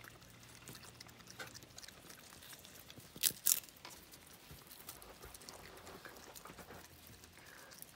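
Baby raccoon eating a marshmallow: faint chewing and smacking with scattered small clicks, and two sharp crunches a little past three seconds in.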